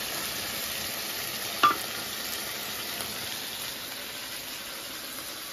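Steady sizzling from a large iron wok of potato stew cooking under a flatbread lid. A short voice sound cuts in about one and a half seconds in.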